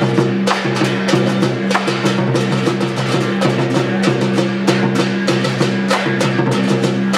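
Large Chinese lion-dance drum beaten in a fast, even rhythm with other percussion, accompanying a lion dance.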